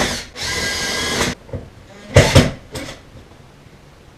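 A power drill runs for about a second at a steady pitch, driving a screw through a heater's metal mounting bracket into the wall. It is followed by two sharp knocks.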